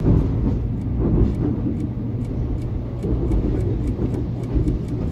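Steady low rumble of a moving train heard from inside the carriage, with faint high ticks about four times a second.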